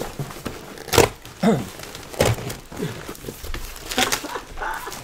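Large taped cardboard shipping box being pulled open by hand: a handful of sharp knocks and thumps as the flaps are bent back, with rustling of the cardboard and the bubble wrap inside.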